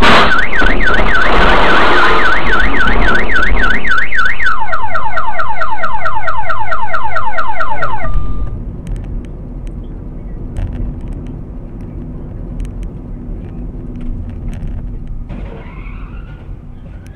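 A sudden loud hit, then a very loud car alarm: a tone wailing up and down two or three times a second, switching about four seconds in to a fast run of rising whoops, and cutting off about eight seconds in. After it comes a lower, steady rumble of road and engine noise inside a moving car, with a few light clicks.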